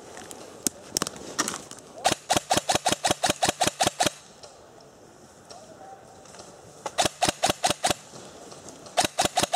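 Airsoft gun firing rapid strings of sharp shots, about seven a second: a few single shots at first, a string of about fourteen about two seconds in, a shorter string of about six around the seven-second mark, and another string near the end.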